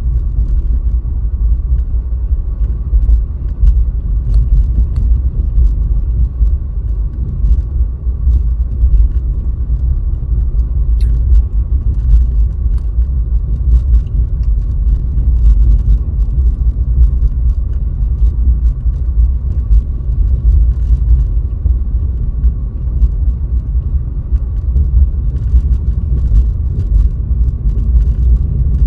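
A car driving, heard through a dashcam: a steady low rumble of road and engine noise, with faint scattered ticks.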